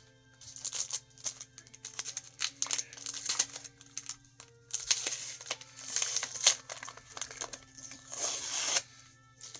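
Packaging crinkling and rustling in a run of quick bursts as comic books are handled and pulled from a shipping box, with one longer rustle near the end.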